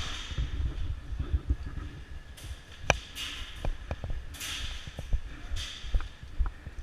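Airsoft guns firing during an indoor skirmish: scattered sharp clicks and cracks of shots and BB hits, the loudest about three seconds in, between short hissing rushes.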